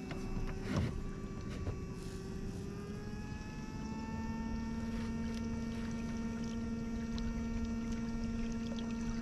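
Electric kayak motor running with a steady whine that rises in pitch a few seconds in as it speeds up, then holds. A single knock about a second in.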